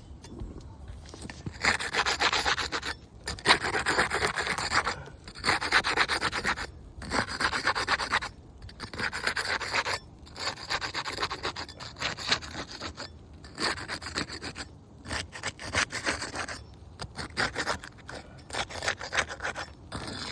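A flat hand tool scraped back and forth against asphalt shingles in about ten rough strokes, each a second or two long with short pauses between them, as the shingle seal is broken for removal.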